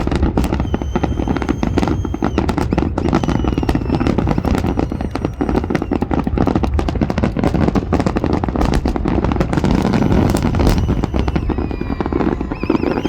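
Fireworks display: a dense, continuous barrage of bangs and crackles, with several high whistles each held for a second or two.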